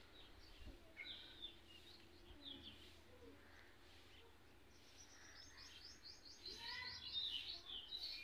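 Faint bird chirps, with a quick run of high, repeated chirps in the second half.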